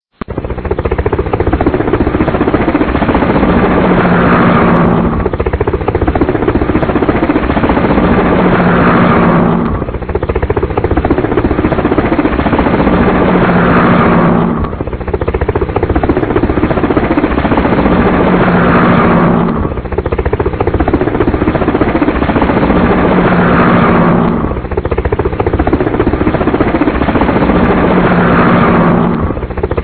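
Helicopter rotor and engine noise: a steady low hum under a fast rotor chop. The same five-second stretch of sound repeats over and over, each time ending in a brief rising whine.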